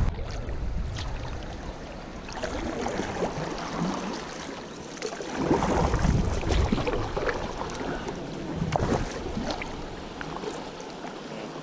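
Kayak paddle strokes: the blades dip and splash in the river every couple of seconds over the steady wash of moving water.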